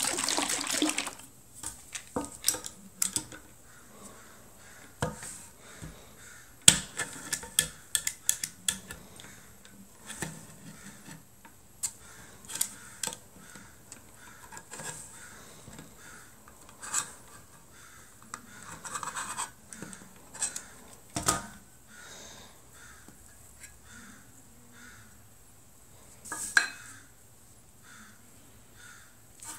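Irregular light taps, clicks and knocks with soft rubbing as wood stain is brushed or wiped onto a test spot on a wooden keyboard case piece, with a few sharper knocks as the tools and piece are handled.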